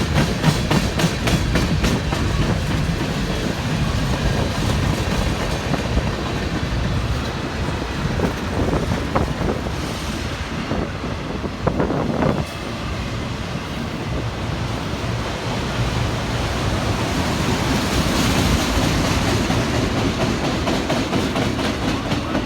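Freight train cars rolling past, wheels clattering steadily over the rail joints, with a regular clicking rhythm for the first couple of seconds.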